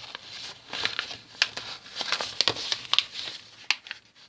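A sheet of A4 paper being folded and creased by hand: irregular crinkling with many sharp little crackles.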